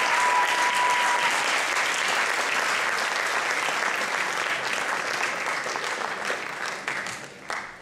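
Audience applauding, a dense spread of many hands clapping, with a single held tone over it for about the first second. The clapping thins and dies away near the end.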